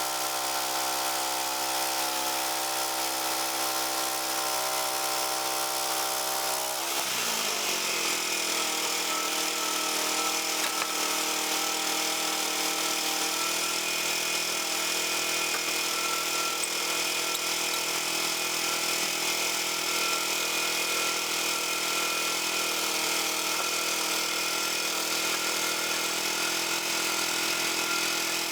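Frontier OS31 portable band sawmill's gas engine running steadily. About seven seconds in its pitch drops, then it holds steady at the lower pitch with a hiss over it as the band blade cuts through the ash log.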